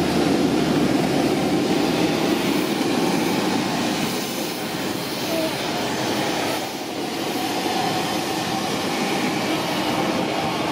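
Aircraft engine noise on an airport ramp: a loud, steady rush with faint whining tones in it.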